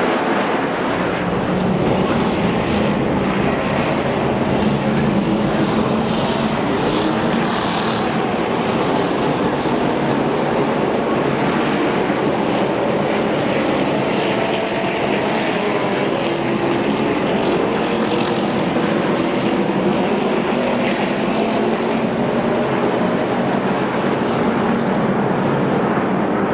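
A field of NASCAR trucks racing around the track, their V8 engines making a continuous loud drone whose pitch wavers up and down as trucks pass.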